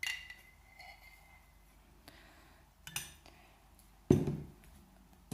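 Spoon clinking against a dish while grape molasses is spooned out. There are a few sharp clinks, the first one ringing briefly, and a louder, duller knock about four seconds in.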